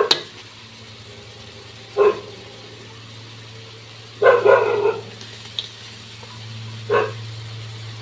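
A dog barking in short, separate barks about every two to three seconds, with a double bark near the middle, over a steady low hum.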